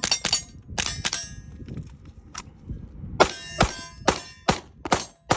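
.22 LR CMMG Bravo rifle firing about ten shots at an uneven pace, quicker toward the end. Each shot is followed by a short metallic ring, typical of rounds hitting steel targets.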